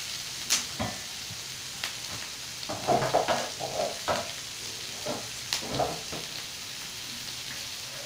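Carrots, green beans and onion sizzling in butter in a nonstick frying pan, a steady hiss. A few light clicks and short knocks come through, most of them around the middle.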